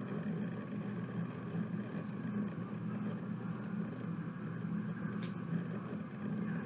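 A steady low rumble, with a faint click about five seconds in.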